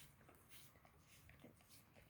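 Dog licking bare feet: faint, soft wet clicks and smacks of the tongue, three or four a second.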